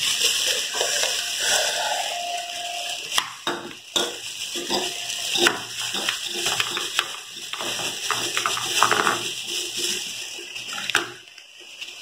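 Clear plastic packaging crinkling and rustling as a blender part is unwrapped by hand, with many small crackles, dying down near the end.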